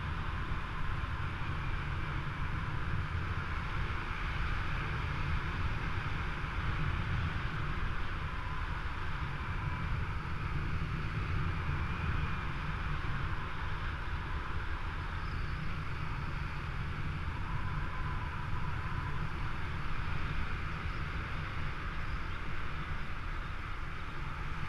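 Steady wind rushing over the microphone of a camera carried on a paraglider in flight, a continuous low buffeting with a hiss above it.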